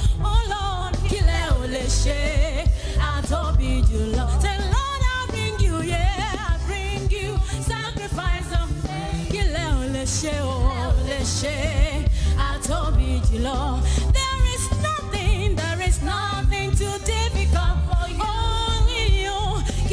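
Live gospel praise-and-worship music: singers leading a praise song, sung in Yoruba and English, over a band with a steady bass and drum beat.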